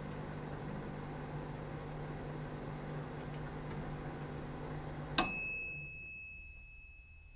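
Microwave oven running with a steady hum, cutting off about five seconds in with a single bell ding that rings on and fades: the timer has run out and the heating cycle is finished.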